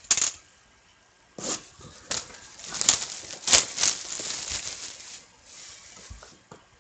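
Hands opening a sealed box of hockey cards: the plastic shrink-wrap crinkling and tearing and the cardboard rustling, in short bursts and then a longer crackling stretch with two sharp snaps about three seconds in.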